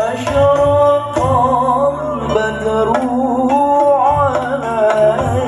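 Music: a melody of long, wavering held notes over a low accompaniment.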